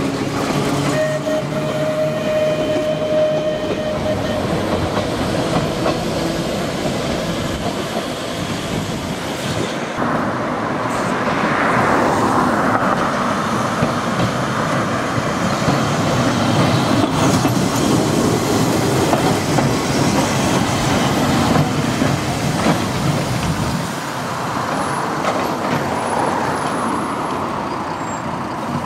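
Manx Electric Railway tramcars running on the track: a motor car and trailer rolling past, then, after an abrupt change about ten seconds in, another electric tram approaching.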